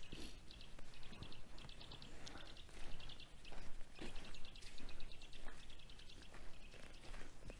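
Small songbirds calling: runs of quick, high chips and trills repeated again and again, with a few soft low thumps.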